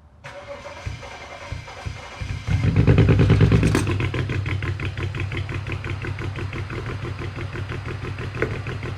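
Direct-injection car engine cranked by the starter, catching about two and a half seconds in with a short flare of revs, then settling to a pulsing idle that is rough and unsteady in speed: the engine is misfiring in cylinders 1, 3 and 5.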